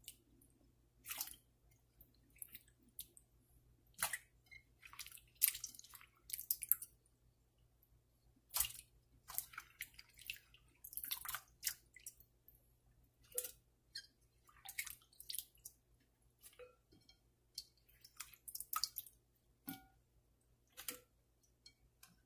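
A hand swishing and squeezing thin raw potato slices in a bowl of water to rinse them: irregular small splashes, drips and wet squishes, scattered through the whole stretch.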